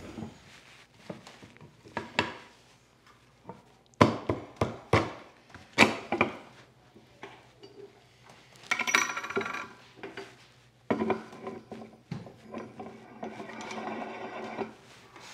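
Maple vise jaws knocking on each other and the bench, and steel vise hardware clinking and rattling, as a Moxon vise's front jaw is fitted onto its threaded rods and a chrome handwheel is set on. Several sharp knocks come in the first six seconds, then longer stretches of metallic rattling.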